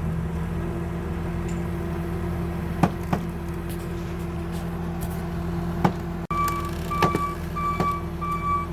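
A large vehicle's engine running steadily, with a few sharp knocks. About six seconds in, a reversing alarm starts beeping, about two and a half beeps a second: the machine is backing up.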